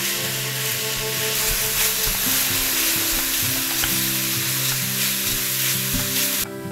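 Diced apples in sugar and cinnamon sizzling in a hot frying pan while being stirred with a spatula. The sizzle cuts off suddenly near the end.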